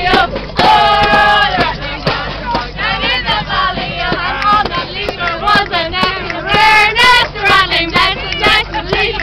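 A crowd of people singing loudly together. A hand drum is slapped and maracas are shaken along with the singing.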